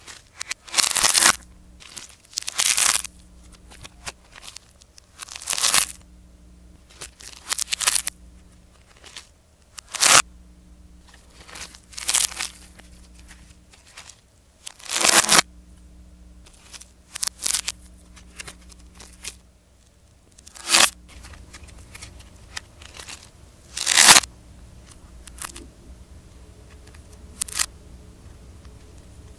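Dried, hardened clay macarons being cracked and peeled apart by hand: repeated bursts of crackling and tearing, with a few sharp snaps, separated by short pauses.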